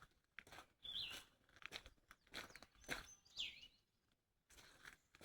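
Faint crunching and rustling, with two short high bird chirps, about a second in and again around three seconds in.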